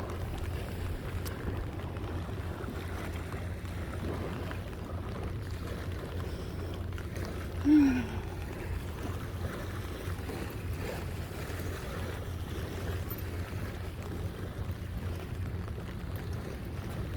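Steady low rumble of a towboat's diesel engines pushing a barge tow along the river. About eight seconds in comes one brief, loud squawk that falls in pitch.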